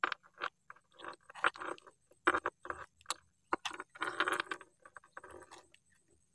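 Close, irregular scraping and clicking as hands work a fishing hook out of a small catfish's mouth, with short rustles in quick, uneven bursts.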